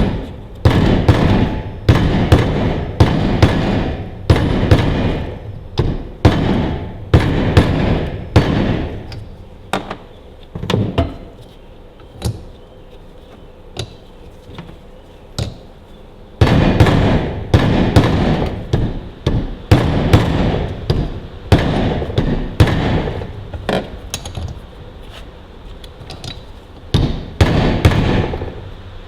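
Repeated hammer blows driving a new PTO shaft oil seal down into its housing on a Ferguson TEA20 tractor, each sharp strike dying away quickly. The blows come at roughly one or two a second in two long runs, with only a few lighter taps in a pause between them.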